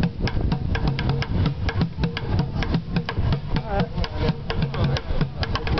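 Street drummer playing a fast, steady rhythm with sticks on upturned plastic buckets: a rapid stream of sharp cracks over deeper thuds.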